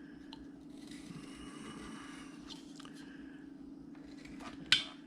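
Carving knife cutting and scraping into wood in short, faint cuts, with one sharp click near the end, over a steady low hum.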